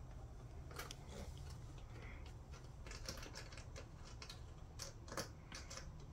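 A run of irregular light metallic clicks and taps from small terminal hardware being handled on the studs of LiFePO4 battery cells.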